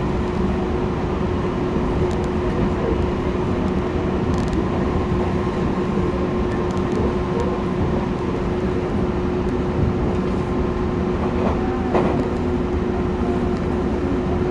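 Tobu Tojo Line electric commuter train running, heard from inside the passenger car. There is a steady rumble of wheels on the track under a constant hum, and a single knock near the end.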